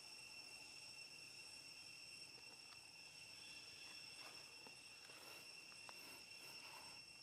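Faint, steady high-pitched drone of insects trilling, with a few faint soft clicks in the second half.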